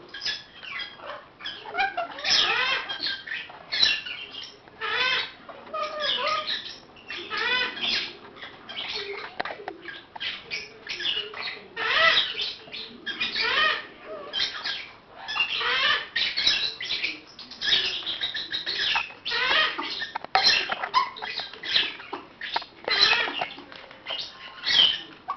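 Baby African grey parrots chirping and squawking almost without pause: many short calls, some rising and falling in pitch, in quick succession.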